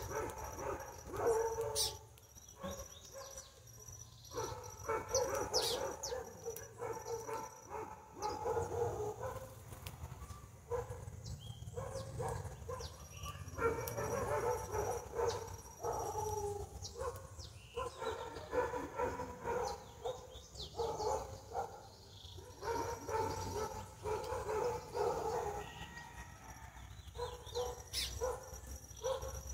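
A dog whining and whimpering in drawn-out spells of a few seconds each, with short pauses between them.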